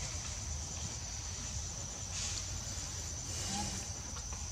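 Insects droning steadily at one high pitch, over faint low background noise.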